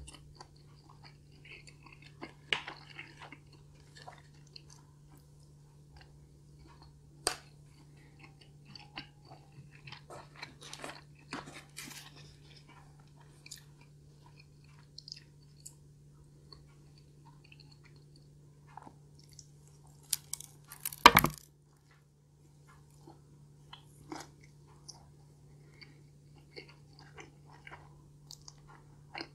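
Close-up eating sounds: a person chewing and biting, with scattered small crunches and clicks as she eats meatballs and then a slice of stuffed-crust pizza. One louder crunching burst comes about two-thirds of the way through. A steady low hum runs underneath.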